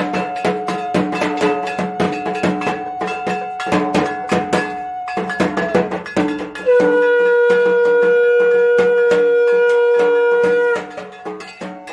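A hand bell rings in rapid repeated strikes throughout, with a fainter held tone under it in the first half. About six and a half seconds in, a conch shell (shankha) is blown in one long steady blast of about four seconds, louder than the bell, breaking off a second before the end.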